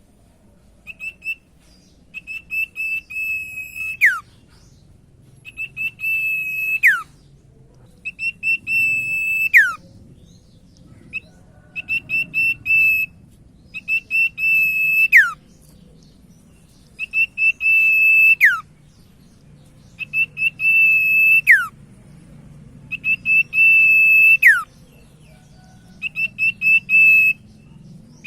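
Common iora (sirtu, or cipoh) singing: phrases of short whistled notes running into a long, steady, high whistle that drops away in a quick downward slur at the end, repeated about every three seconds, nine times or so.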